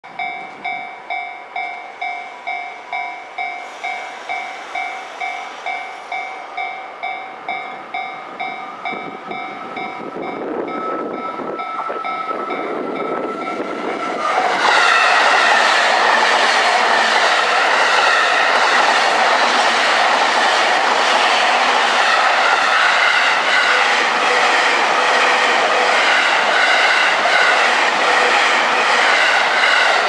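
A level-crossing warning bell rings in an even, repeating rhythm while an approaching train's sound slowly builds. About halfway through, a JR E233-series electric train passes close by, and its loud running noise covers the bell.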